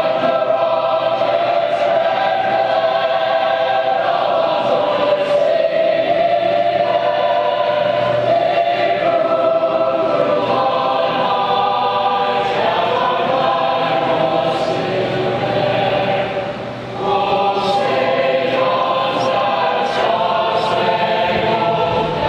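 Large choir of service-academy students singing a slow song in long, held chords, with a brief break between phrases about seventeen seconds in.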